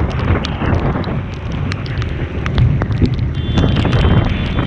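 Wind rushing over the microphone of a moving motorcycle, with engine and road rumble underneath and many scattered sharp ticks.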